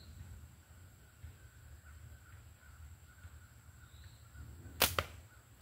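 A slingshot shot: the flat rubber bands released from full draw with a sharp crack, followed at once by a second snap, near the end. Before it, only soft handling while the pouch is loaded and drawn.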